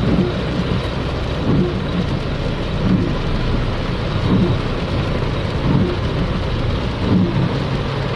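Floodwater rushing down a street in a fast, muddy torrent, mixed with heavy rain: a loud, steady wash of water noise. A low pulse rises out of it about every second and a half.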